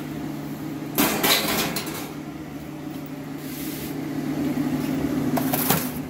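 Carrier gas furnace's draft inducer motor running with a steady hum. Two loud clattering knocks cut across it, one about a second in and one near the end.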